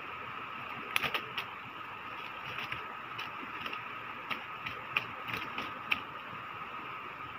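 Irregular sharp clicks and small knocks of hands handling fishing tackle and a just-caught small fish, over a steady outdoor hiss.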